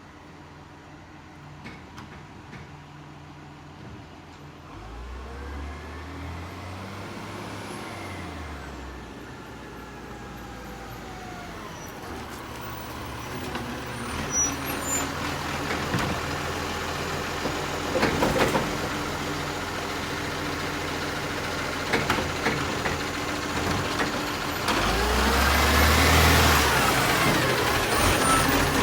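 Garbage truck's diesel engine running and revving up and back down twice, once about five seconds in and again near the end, growing steadily louder as it comes closer.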